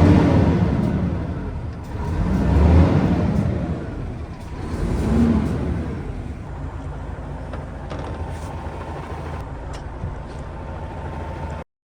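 Hino FM700 concrete mixer truck's diesel engine revved up and back down three times, about two and a half seconds apart, then running steadily at idle; the sound cuts off suddenly near the end.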